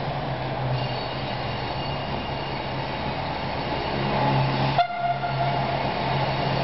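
Train approaching slowly over a viaduct: a steady low hum with faint high squeals from about a second in. Near the end comes a sudden knock, followed by a short higher tone.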